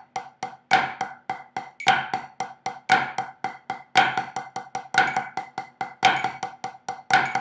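Drumsticks on a rubber practice pad playing the flammed five-stroke paradiddle slowly, at 55 beats per minute. There is an even run of quick strokes, with a louder stroke about once a second.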